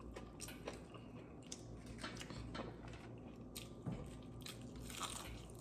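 Close-up chewing and biting of fried food, with wet mouth sounds and scattered small clicks.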